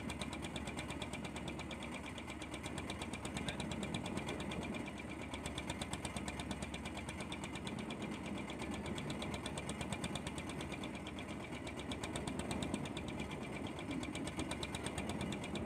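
Fishing boat's engine running steadily, with an even, rapid pulse.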